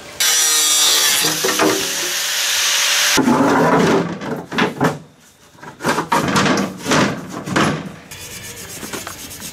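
A loud, steady rushing noise for about three seconds that cuts off suddenly. Then come handling sounds: a dashboard mock-up panel being shifted, scraped and rubbed against the car's body in irregular strokes.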